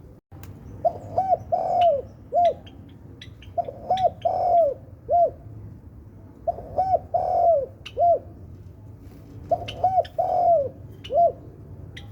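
Spotted dove cooing in four repeated phrases about three seconds apart, each a few short coos around one longer, drawn-out coo. Thin, high chirps from small birds sound between and over the phrases.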